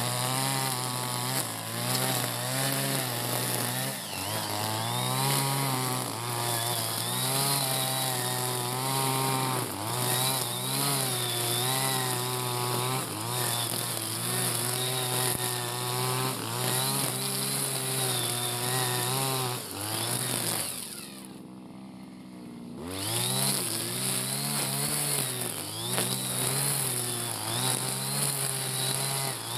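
Backpack brush cutter's small engine running at high revs, its pitch rising and falling as the cutting head is swung through tall grass. About two-thirds of the way through it drops briefly to idle, then revs back up.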